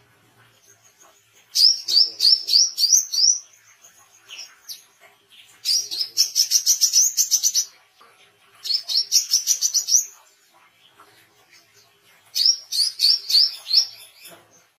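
Brown-throated sunbird (wiceh) singing in full voice: four bursts of rapid, high, sharp repeated notes, each lasting one to two seconds, with short pauses between them.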